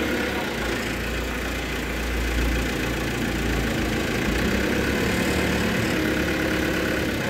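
Telehandler's diesel engine running steadily, with a deeper low rumble through the first few seconds.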